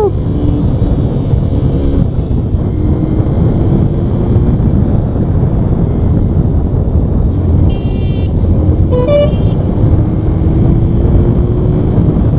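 Hero Xpulse 200T's 200 cc air-cooled four-stroke single-cylinder engine pulling under acceleration during a pickup test, heard from the saddle under heavy wind rush; its note rises slowly in pitch twice as it revs up. Two short vehicle horn toots sound about eight and nine seconds in.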